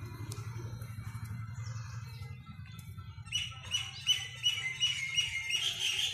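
A bird chirping in quick repeated high notes, about three a second, starting about three seconds in. A low steady hum runs under the first half.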